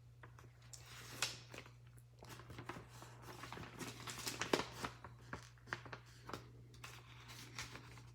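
Paper or packaging being handled: a string of faint, irregular rustles, crinkles and small clicks.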